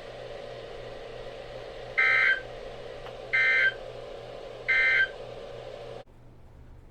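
Emergency Alert System SAME end-of-message data bursts on weather radio: three short, identical buzzing digital chirps about 1.3 seconds apart over steady radio hiss and hum, marking the end of the warning broadcast. The radio audio cuts off abruptly about six seconds in.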